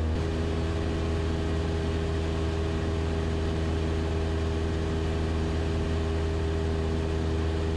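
Cessna 172 Skyhawk's piston engine and propeller running steadily in flight, heard inside the cabin as an even drone with several held tones over a strong low hum.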